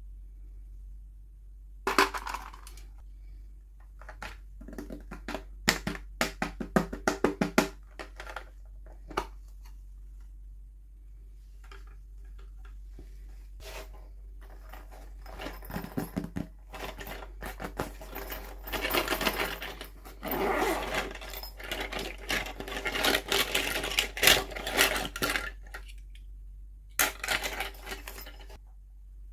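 Hands unboxing small plastic toy miniatures: quick runs of small plastic clicks and taps, then longer stretches of plastic packaging rustling and crinkling, with a final short burst near the end.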